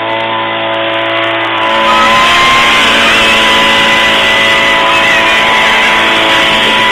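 Gas-powered leaf blower running loud and steady. About two seconds in it is throttled up, and the engine's steady hum gives way to a louder, noisier rush.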